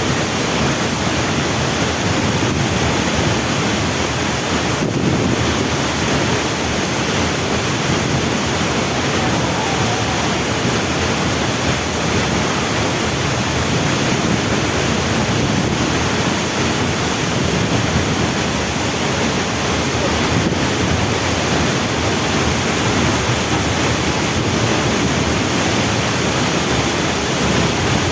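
Waterfall: water falling and splashing in a steady, loud rush, with some wind on the microphone.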